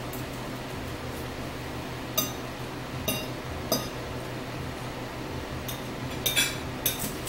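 Metal eating utensil clinking against a bowl and plates as food is stirred and scooped: a few separate clinks in the middle, then a quick run of them near the end. A steady low hum runs underneath.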